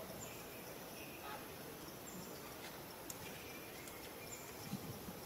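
Faint forest ambience: a steady hiss with a few short, high chirps and a few light clicks.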